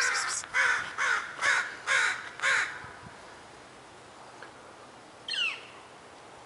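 Steller's jay giving a run of about six harsh, rasping calls, about two a second, followed a couple of seconds later by one short falling call.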